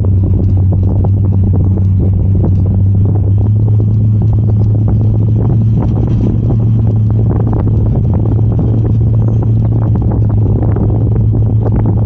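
A vehicle's engine running at a steady low hum while driving, its pitch stepping up slightly about three or four seconds in, with frequent small knocks and rattles.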